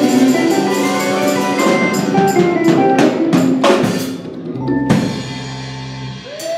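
Live band of drum kit, electric bass, guitar and keyboard playing the closing bars of a tune: dense playing, a run of drum and cymbal hits about three to four seconds in, then a held low note that stops shortly before the end.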